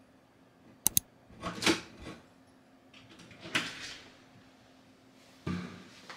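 Front door being unlocked and opened: two sharp clicks of the lock about a second in, then two rustling swishes as the door and the person move, and a dull thump near the end.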